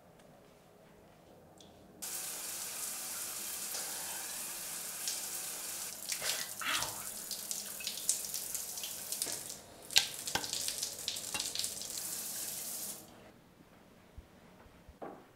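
Shower head spraying water. It comes on suddenly about two seconds in, runs steadily with louder splashes as a hand and arm pass under the spray, and cuts off abruptly near the end.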